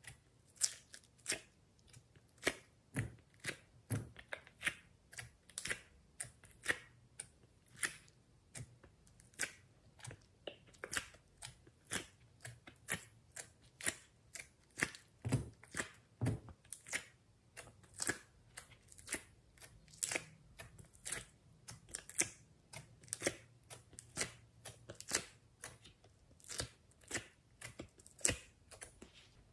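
Slime cubes popping out of a flexible silicone honeycomb mold as they are pressed out cell by cell: an irregular run of crisp clicks and pops, roughly two a second.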